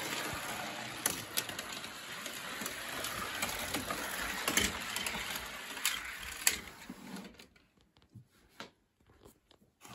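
1/64 die-cast toy cars and trucks rolling along a track in a convoy: a steady rattling whir of small wheels with scattered clicks as they knock against the track and each other, dying away about seven seconds in.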